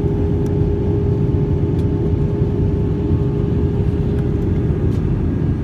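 Steady in-flight cabin drone of an Airbus A320 with IAE V2500 engines, engine and airflow noise heard from inside the cabin, with a steady hum tone running through it.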